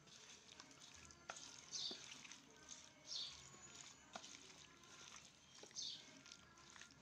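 Faint wet squelching of a hand squeezing and mixing raw pigeon meat with potato and onion pieces in oily spice paste in a plastic bowl, with a few louder squishes about two, three and six seconds in.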